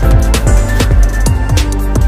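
Background music with a fast, steady beat of deep drum hits.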